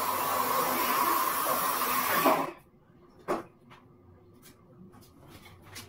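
Aerosol spray can hissing in one continuous spray at the window, cutting off abruptly about two and a half seconds in. A single sharp knock follows about a second later, then a few faint ticks.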